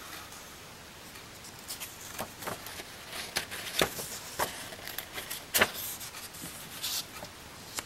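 Paper rustling and soft clicks as a page of a hardcover picture book is handled and turned, with one sharper snap of the page about five and a half seconds in.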